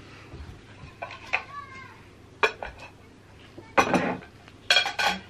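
Plates and cutlery clattering as they are set down on a table: a sharp clink about two and a half seconds in, then two louder bursts of clatter near the end.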